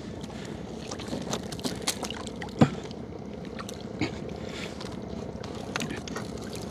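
Wet gill net being hauled and handled aboard a small wooden fishing boat: scattered knocks and clicks of net, floats and hull, with water dripping and splashing over a steady background noise. The sharpest knock comes about two and a half seconds in.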